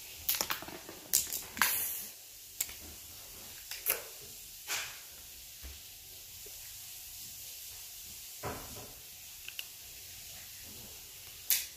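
A handful of brief rustles and scrapes, about eight, scattered unevenly, over a faint steady hiss: close handling noise, as of markers and squishies being picked up and passed around.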